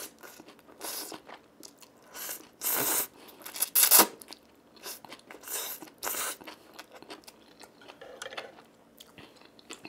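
Close-miked eating of spicy stir-fried instant noodles (Buldak bokkeum-myeon): a series of short slurps and chewing sounds with quiet gaps between them. The loudest slurp comes about four seconds in.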